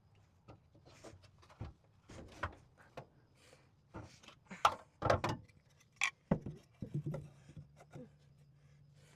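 Irregular knocks, taps and clatter of wood and tools being handled during carpentry work, with a low steady hum coming in about seven seconds in.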